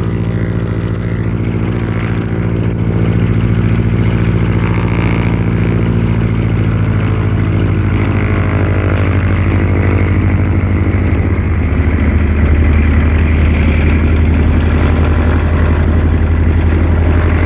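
Engine of a Pilatus Porter light aircraft droning steadily in flight; about two-thirds of the way through its pitch drops slightly and it grows a little louder.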